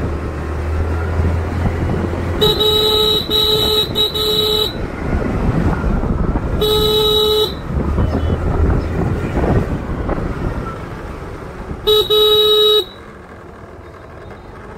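Scooter horn honking while riding: three quick beeps a few seconds in, a single honk a couple of seconds later, and another near the end. Under it runs the low rumble of the moving scooter and wind on the microphone.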